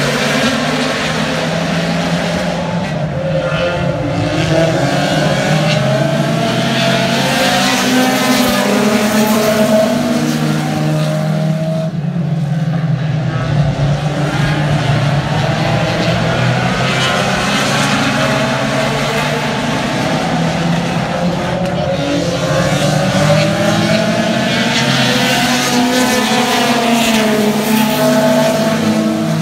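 A pack of front-wheel-drive compact race cars lapping a short asphalt oval, several engines at once whose pitch rises and falls as they go by. The field swells past twice.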